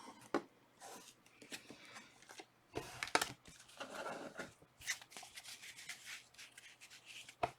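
Trading cards and their packaging being handled by hand: irregular clicks, taps and short rustles.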